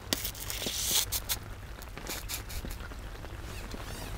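Rain falling on a fishing umbrella overhead: scattered, irregular drop taps over a steady low rumble, with a brief louder rustling hiss about a second in.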